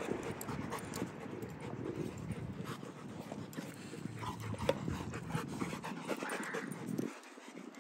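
Rottweilers panting during play, with small clicks and scuffs throughout; the sound drops away abruptly near the end.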